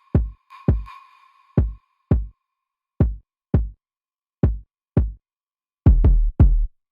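Electronic music: deep drum-machine kick hits in a sparse, uneven pattern, with dead silence between them. A held synth tone runs under the first couple of seconds, and the hits bunch closer together near the end.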